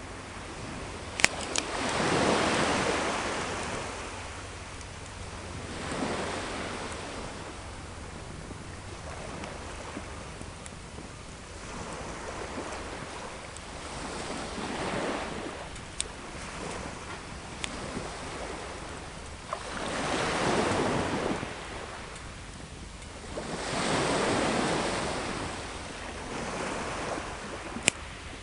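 Sea waves washing onto the shore in several slow surges that swell and fade, over a steady hiss of surf. A wood campfire gives a few sharp pops and crackles, the loudest about a second in and near the end.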